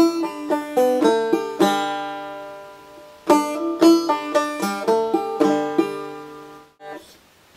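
Five-string banjo played clawhammer style: a short drop-thumb lick of plucked, ringing notes, played twice, that stops about seven seconds in.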